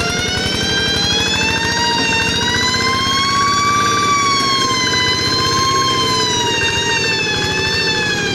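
Rice-field tractor working, its engine pulsing steadily under a loud 'nging' whine that slowly rises and falls in pitch.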